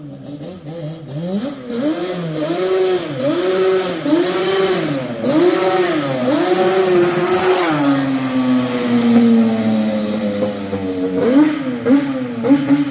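Yamaha Banshee's ported big-bore stroker twin-cylinder two-stroke engine, through a DMC center-merge race exhaust, revving up and down in quick repeated bursts about once a second. It then settles into a long, slowly falling note as the quad runs off, with a few quick blips near the end.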